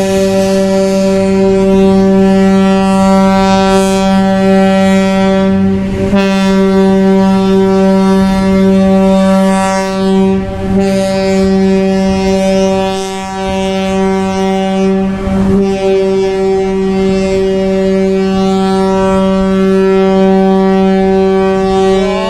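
Ship's horn sounding one long, steady blast during the ship's launch down the slipway on rubber airbags.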